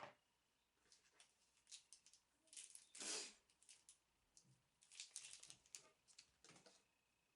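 Faint handling noise of makeup brushes and their packaging: scattered light clicks and brief rustles, a little louder about three seconds in and again around five seconds.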